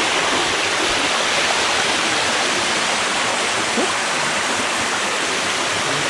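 Steady rushing of water cascading over the sixth tier of Erawan Falls, a limestone waterfall.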